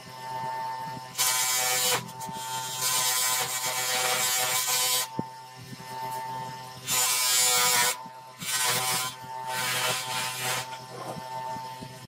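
DeWalt bench grinder running steadily, with a polished metal part pressed against its spinning wheel about five times, each contact a harsh hiss lasting about a second, the longest about two seconds. The running stops suddenly near the end.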